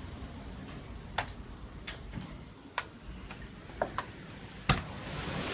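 Scattered sharp ticks of heavy drops striking a hard surface during a thunderstorm, about seven at uneven intervals with the loudest near the end, over a low storm rumble; a steady rain hiss builds in the last half second.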